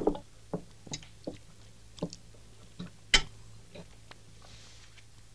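Metal spoon knocking and scraping in a pan of beans while eating: a string of light clicks, the loudest about three seconds in, over a faint steady hum.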